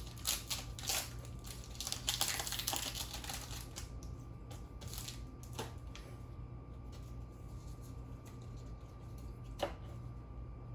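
Trading cards being handled and flipped through: scattered light clicks and snaps, with a denser rustle about two seconds in, as from a booster pack's foil wrapper or a stack of cards sliding.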